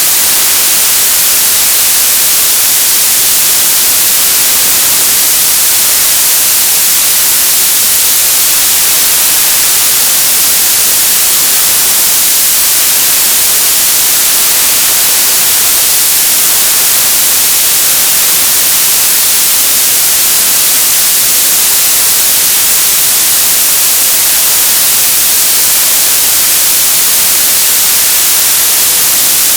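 Television static: a loud, steady hiss, strongest in the high end, with no change.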